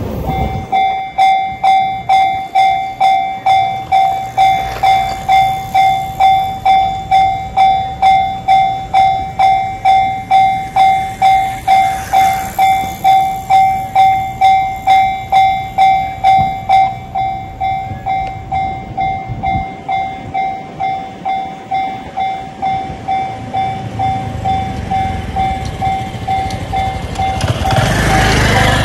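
Japanese railway level-crossing warning bell ringing steadily at about two dings a second, louder for the first half and softer after that. A passing train's noise swells near the end.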